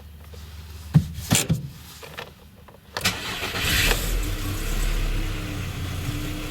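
Skoda Octavia 1.6 MPI four-cylinder petrol engine started from cold. A few sharp clicks come first, then about halfway through it cranks briefly, catches and settles into a steady fast idle. This engine knocks when cold, a fault that three engine repairs have not traced.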